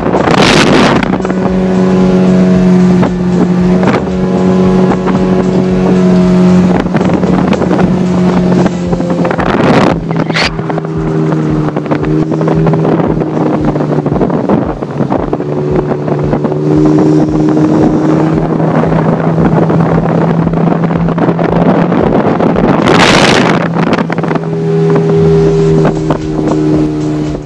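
Small motorboat's engine running steadily at speed, heard from aboard, its pitch dropping slightly about a third of the way in. Wind buffets the microphone in three loud gusts: at the start, about ten seconds in, and near the end.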